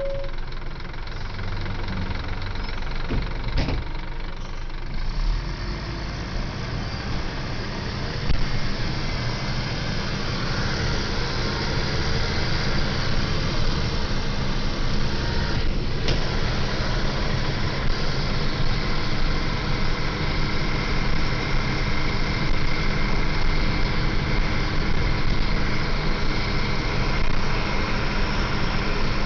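Scania L94UB city bus engine running steadily, growing a little louder after about eight seconds, with a faint steady whine above it later on.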